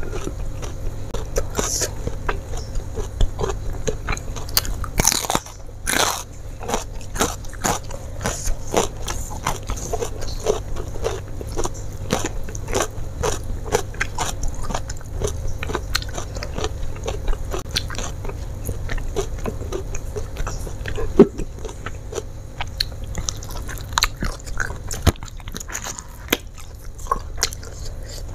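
Close-miked eating: crunching bites of raw bitter melon, then chewing fried chicken and rice, heard as a dense run of small crisp clicks and mouth sounds.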